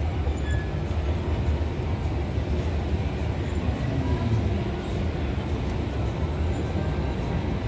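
Escalator running: a steady low mechanical rumble, heard over the general murmur of a busy airport terminal hall.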